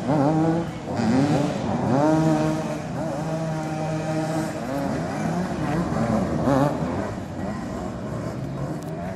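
Several motoball motorcycles running at once, their engines revving up and down in overlapping notes that now and then hold steady.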